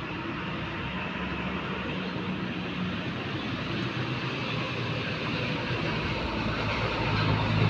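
Pelita Indah intercity bus's diesel engine running as the bus draws near, a low hum over road noise growing gradually louder toward the end.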